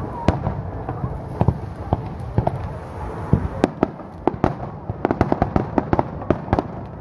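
Aerial fireworks shells bursting, a series of sharp bangs and cracks that come scattered at first and then thick and fast in the second half.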